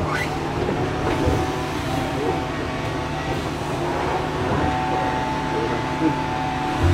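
A steady mechanical hum with a constant noise bed, unchanging throughout.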